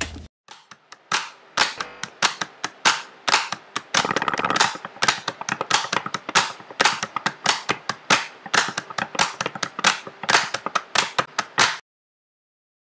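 Loud, sharp metallic clicks from a ratchet mechanism, several a second in uneven runs, that stop abruptly near the end.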